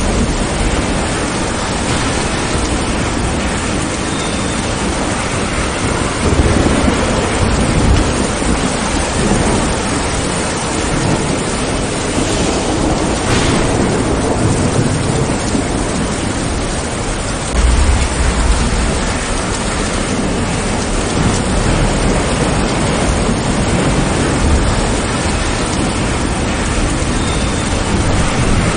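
Steady rain pouring down, with thunder rumbling low twice: once about six seconds in and again a little past the middle.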